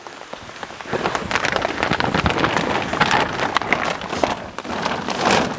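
Black plastic drum liners of a stretcher bed crinkling and rustling as a person climbs onto them and settles in. A dense run of small crackles that picks up about a second in.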